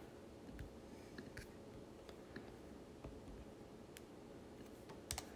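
A few faint clicks from the keys and trackpad of a MacBook Air laptop, spread out, with two sharper clicks close together near the end.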